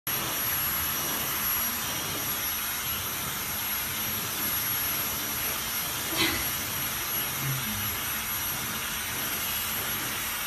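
Hand-held hair dryer blowing steadily: a constant rush of air with a thin, high motor whine, aimed at a towel-wrapped pug puppy. A brief click or knock about six seconds in.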